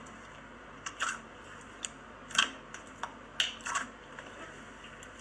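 Slime being played with, giving a series of sharp crackling clicks, about seven spread irregularly over a few seconds.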